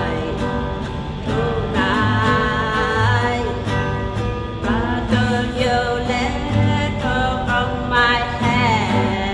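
A pop song performed softly: a voice singing a melody over plucked guitar with a steady, regular bass.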